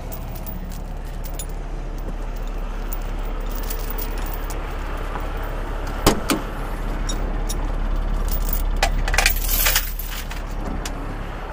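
Heavy diesel truck idling steadily, with light metallic clinks throughout, a sharp clack about six seconds in and a short hiss about nine seconds in.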